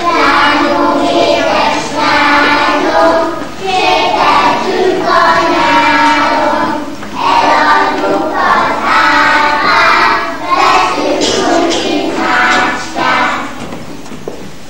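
A group of kindergarten children singing together in short phrases, with brief breaks between them. The singing stops near the end.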